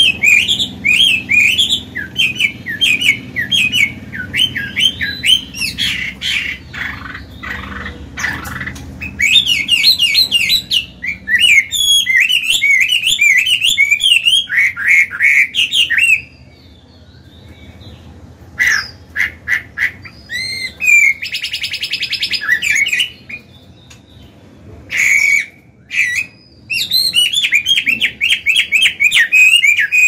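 Chinese hwamei singing loud phrases of fast, varied, warbled whistles. The song breaks off about halfway, returns as scattered short notes and a harsh rasping note, and picks up again into full phrases near the end.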